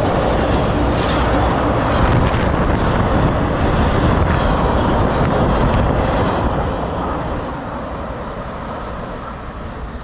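A train passing close overhead on a steel girder railway bridge, its wheels and bogies rolling over the rails in a loud, steady noise that grows fainter from about six seconds in as the train moves away.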